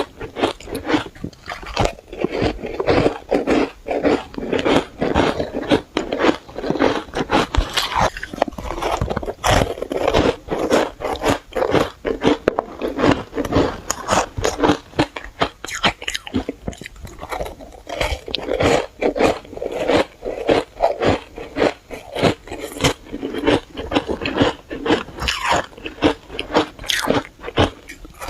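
Close-up biting and chewing of powdery shaved ice: dense, irregular crunching and crackling throughout.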